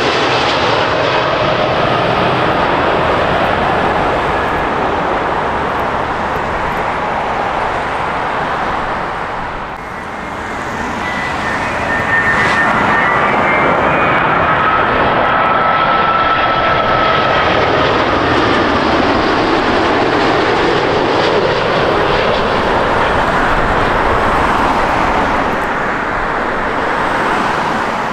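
Jet airliners passing low overhead on landing approach, their engines making a loud, steady rush with a whining tone that glides in pitch as each one goes by. At first it is a Boeing 747 with four engines; after a brief dip about ten seconds in, it is a twin-engine Boeing 787.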